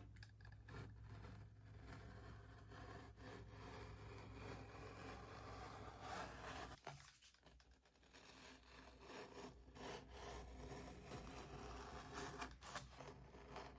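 Faint scraping of a knife blade being drawn through thick cattle-hide leather while cutting out a sheath's welt piece. It breaks off briefly about seven seconds in.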